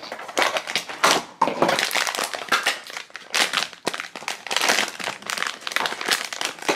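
Holographic foil blind bag crinkling and crumpling in the hands as it is opened, a dense run of irregular crackles.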